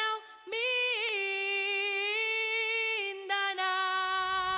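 A single voice singing the word 'Mindanao' as intro music, the vowels held in long steady notes, changing note about three seconds in.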